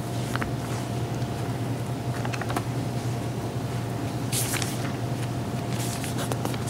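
Pages of a large altar book being turned and handled, a few brief papery swishes and light taps over a steady low hum.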